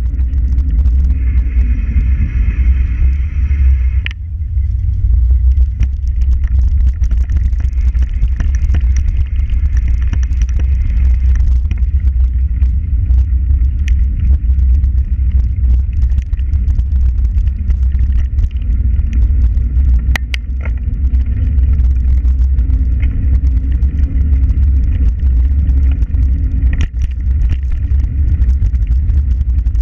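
Heavy wind buffeting on the microphone of a camera moving fast along a towpath, a constant low rumble with scattered clicks and rattles from the ride. For about three seconds near the start a high, steady whining tone sits over it, then cuts off suddenly.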